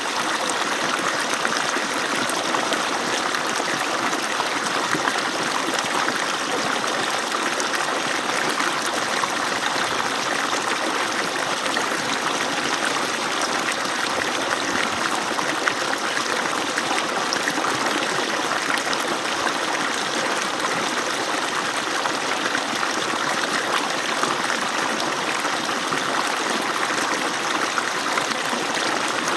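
Water pouring steadily from an agricultural pump's outlet, a continuous even rush.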